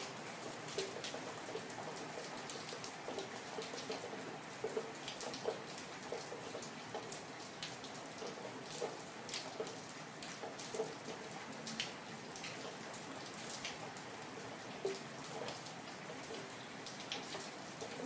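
Steady rain with close drops ticking sharply, several a second, some landing with a short low plink.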